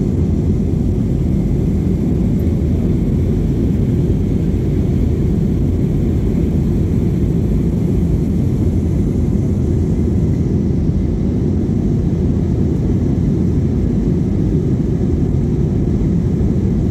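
Cabin noise of an Airbus A320-232 climbing after takeoff: its IAE V2500 turbofans at climb power and the air rushing past the fuselage make a steady low rumble.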